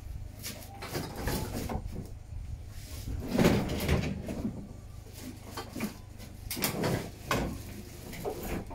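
Irregular knocks, bumps and clatter, like hard objects being handled and set down, loudest about three and a half seconds in, over a steady low rumble.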